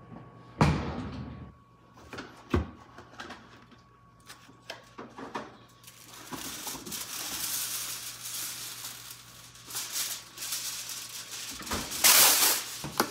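Kitchen handling noises: a heavy thump about half a second in, a few scattered clicks and knocks, then rustling that ends in a loud burst of crinkling near the end.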